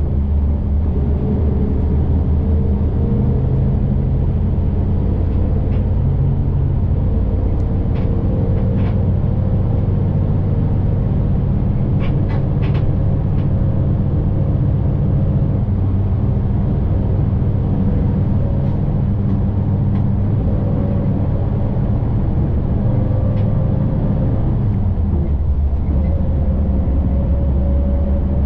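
City bus driving along, heard from inside the cabin: a steady low engine drone over road and tyre noise, with a few brief light clicks or rattles about 8 and 12 seconds in.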